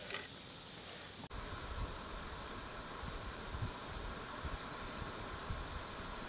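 From about a second in, a propane camp-stove burner runs steadily under a pot heating toward the boil. A steady high insect drone carries on behind it.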